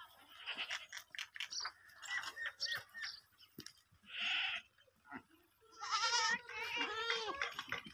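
Goats feeding at metal bowls, with scattered clicks and crunches as they eat. About six seconds in, one goat gives a loud, wavering bleat lasting about a second and a half.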